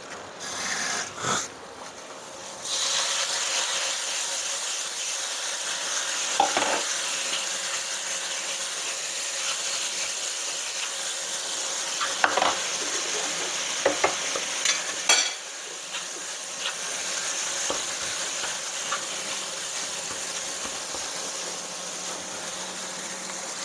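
Curry spice paste sizzling in a non-stick frying pan as it is fried down until cooked. The sizzle comes up loud about three seconds in and then holds steady, and a wooden spatula stirs and scrapes through the paste, tapping the pan now and then.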